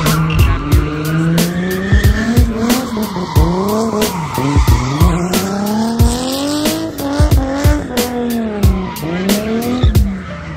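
Drift car engine revving hard, its pitch rising and falling many times as the driver works the throttle through a slide, with tyres squealing as they skid.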